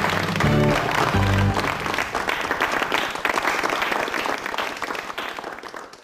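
The end of a rock band's song: the last low chords and bass notes ring for a second or so, then a dense crackling wash of noise, like applause or ringing cymbals, fades steadily out.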